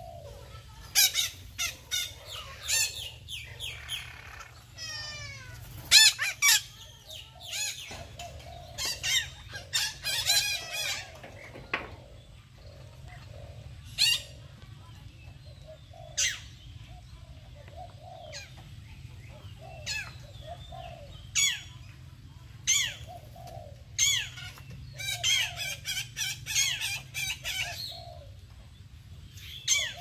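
Red-breasted parakeets calling: short, harsh squawks that drop in pitch, some single and some in quick bunches, over a steady low hum.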